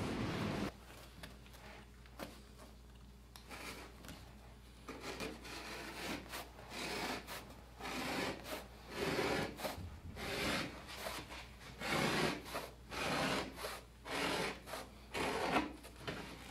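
Hands rubbing and pressing a hardboard drawer bottom down onto a sheet of felt: dry scuffing strokes, sparse at first, then about one a second from about five seconds in. A loud hiss cuts off just under a second in.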